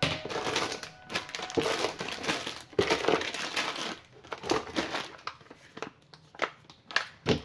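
Plastic food packaging (instant noodle packets and sachets) crinkling and rustling as it is handled and packed into a plastic storage box. The rustling is dense for the first four seconds, then comes in scattered bursts, with a sharp tap near the end.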